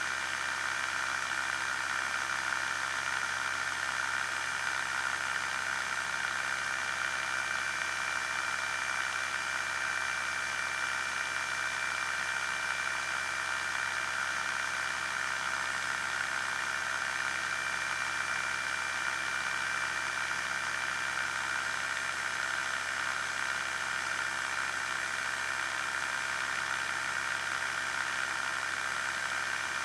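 Quad City Challenger II ultralight's pusher engine running steadily in flight, with steady wind rush over the wing-mounted microphone.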